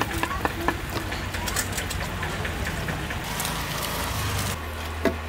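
Sugar syrup boiling hard in a metal pot over a wood fire, with quick pops and crackles from the frothing bubbles over a steady low hum.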